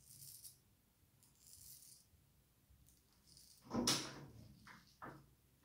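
Antoine Touzet frameback straight razor scraping through lathered neck stubble: three faint, short scraping strokes spaced over the first few seconds. A louder brief noise about four seconds in, then two short quieter noises.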